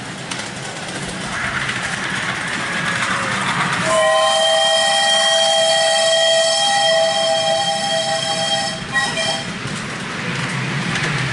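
Miniature steam locomotive modelled on LNER 4472 Flying Scotsman sounding its steam whistle for about five seconds: a steady chord of several notes that breaks off and gives a short extra blip near the end. Before and after the whistle there is a hiss of steam and running noise as the train passes close by.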